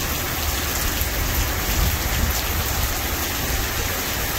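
Heavy rain pouring down, a steady even hiss with a low rumble beneath it.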